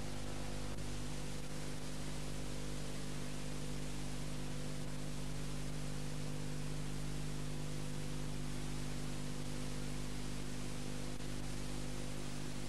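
Steady hiss with a low electrical hum of several steady tones, from the unrecorded audio track of a VHS tape being played back.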